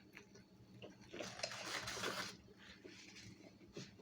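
Close-up chewing of a shrimp taco, with wet mouth and crunching noises, loudest for about a second starting about a second in, then a few small clicks.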